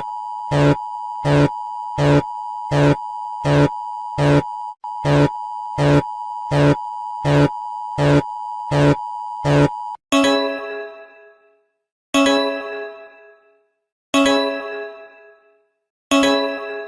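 Emergency alert attention signal: a steady electronic tone with a sharp beep pulsing about 1.4 times a second for about ten seconds, then four chime strikes about two seconds apart, each ringing out and fading.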